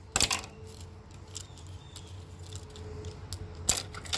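Plastic parts of an old single-line telephone being handled and pulled apart: scattered clicks and knocks, the loudest just after the start and again near the end, over a low steady hum.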